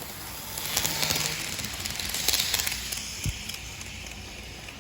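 HO scale model train running on its track, its clattering noise with fine clicks swelling for about two seconds and then fading, with one short knock about three seconds in.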